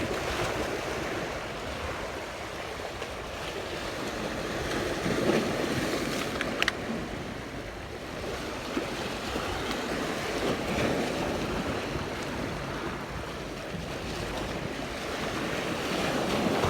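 Sea waves washing in slow surges, with wind buffeting the microphone and a brief sharp click about six seconds in.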